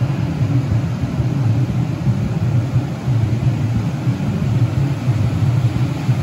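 Steady ocean surf washing on the beach under a fluttering low rumble of wind buffeting the microphone.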